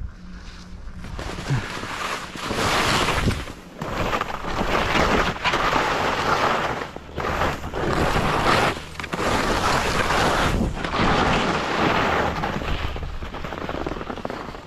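Skis scraping over snow through a series of mogul turns, the noise swelling and dropping every second or two, with wind rushing over the microphone.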